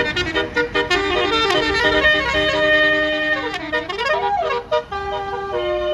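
Bus basuri 'telolet' musical air horn playing a quick melody of stepped notes, with a swooping dip and rise in pitch about three and a half seconds in.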